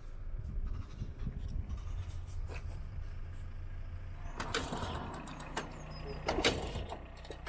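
A motor vehicle's engine idling steadily. A brief rush of noise comes about four and a half seconds in, and another near six and a half seconds.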